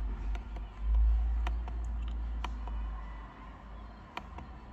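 A handful of sharp, irregular clicks from the car's control buttons being pressed to step through the instrument-cluster menus, over a low rumble that is strongest about a second in.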